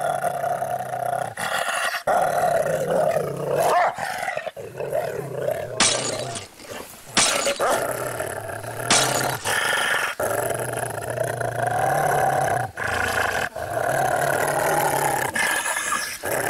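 A dog growling in long, wavering drawn-out stretches over background music with a steady low bass.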